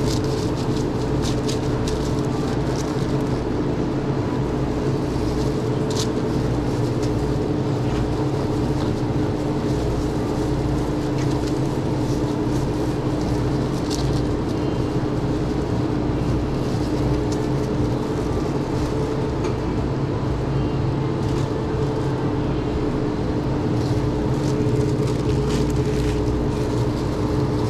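Steady machine hum with a low rumble, dotted with a few scattered clicks and light clatter.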